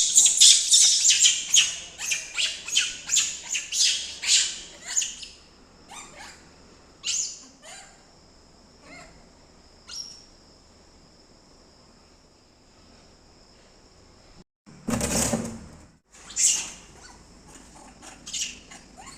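Monkey giving a rapid series of sharp, high-pitched calls, about two a second, which thin out after about five seconds to scattered single calls. A loud, short noisy burst comes about three-quarters of the way in.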